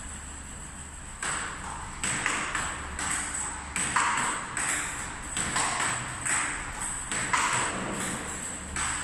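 Table tennis forehand rally: the ball clicking off the paddles and bouncing on the table, about two or three sharp clicks a second, starting about a second in.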